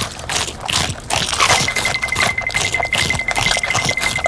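Cartoon sound effects: a rapid, busy clatter of clicks, joined about a second and a half in by a steady, slightly pulsing high tone.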